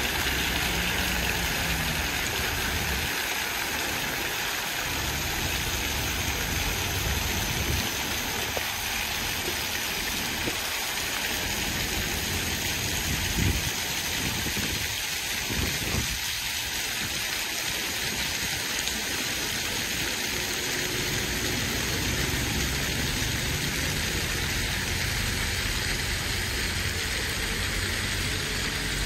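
Fountain jets splashing steadily into their basin, a continuous rain-like hiss, with a low rumble of street traffic underneath.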